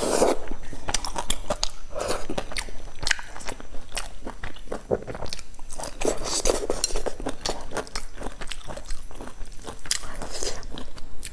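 Close-miked eating of a noodle hot pot: wet chewing and crunchy biting, a dense run of mouth clicks and smacks.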